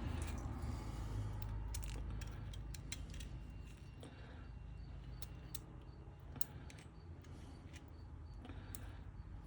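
Small metal parts of an old fuel-tank sending unit being handled and worked: scattered light clicks and ticks, over a low rumble that fades after the first couple of seconds.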